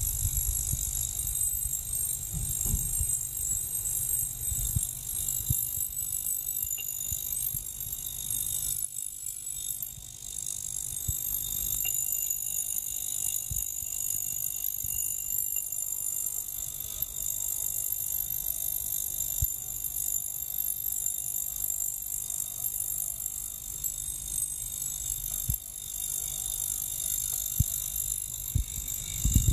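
Small ultrasonic cleaner running, its water bath giving a steady high hiss with thin high tones, over a low rumble with occasional light knocks.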